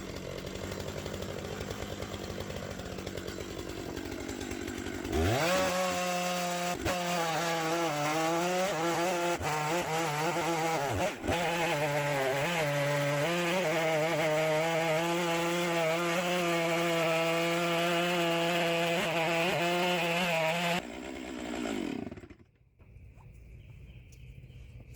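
Stihl chainsaw on an Alaskan chainsaw mill ripping a small ash log lengthwise into a slab. It idles, revs up about five seconds in, and cuts at full throttle for about fifteen seconds, its pitch dipping and recovering as the chain loads up in the wood. It then drops back to idle and shuts off.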